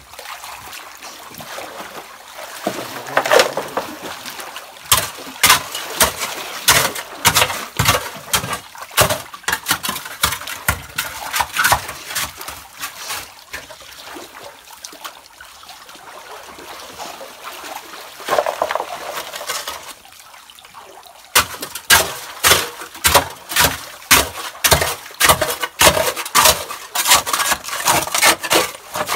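Metal hoe chopping into wet gravel and muddy water: a run of sharp strikes with splashing and stones scraping and clinking. The strokes come about once a second, pause briefly about two-thirds through, then quicken to about two a second.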